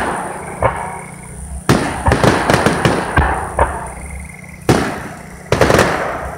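Aerial firework shells bursting in a string of about eight sharp bangs, each fading off over about a second, with some crackling between them.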